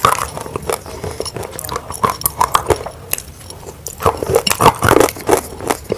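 Someone biting and chewing chunks of roasted grey clay close to the microphone: irregular crisp cracks and crunches as the pieces break and crumble.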